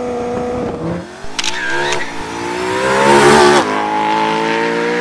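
BMW M3's V8 engine accelerating hard: the exhaust note climbs in pitch and grows loud, drops sharply at a gear change about three and a half seconds in, then climbs again.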